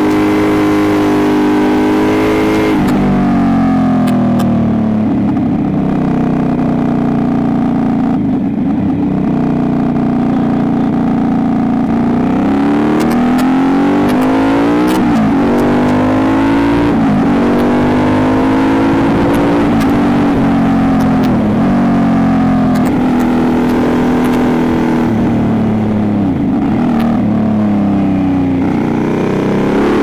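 Motorcycle engine heard from onboard, its revs rising and falling again and again through the bends, with several quick drops in pitch as the throttle closes and gears change.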